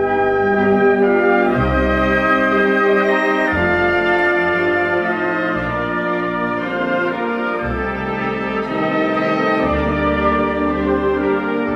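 Classical orchestral music with prominent brass, playing slow held chords over bass notes that change every second or two.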